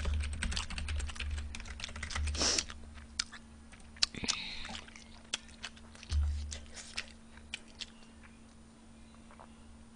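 Typing on a computer keyboard: quick, irregular key clicks, dense at first and thinning out until they stop about eight seconds in. There is one soft low thump about six seconds in.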